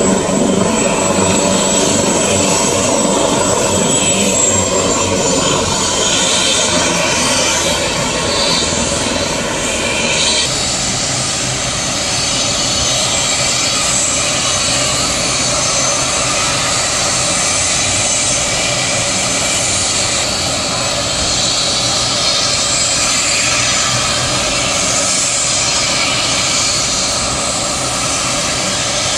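Medevac helicopter's turbine engines and rotor running steadily, with a thin high turbine whine over a dense rushing noise. The sound changes abruptly about ten seconds in, losing some of its lower rumble.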